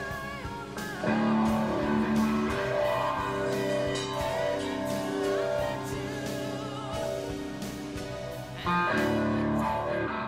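Rock music with electric guitar over a steady drum beat. It gets louder about a second in and cuts off abruptly at the end.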